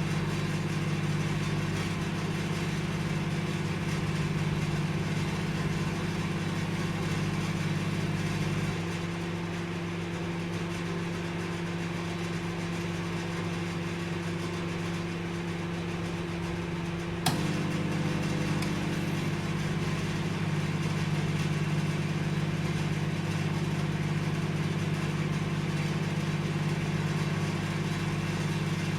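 Microwave oven running with a steady electric hum. About nine seconds in the hum thins and drops slightly, and about seventeen seconds in a sharp click brings the fuller hum back.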